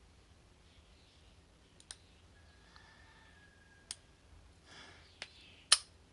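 Lock pick and tension wrench working the pins of a cheap four-pin padlock: a few faint, sparse clicks, then one sharp, much louder click near the end as the lock opens.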